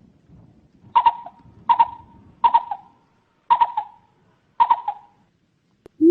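Coucal calling: five short, stuttered calls spaced about a second apart, pitched higher than its usual deep hoots.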